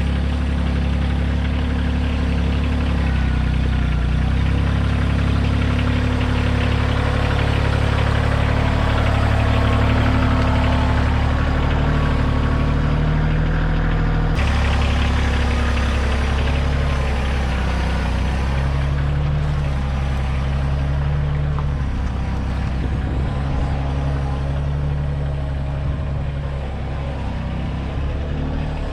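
Kioti compact tractor's diesel engine running steadily, working the backhoe. The sound changes abruptly about halfway through.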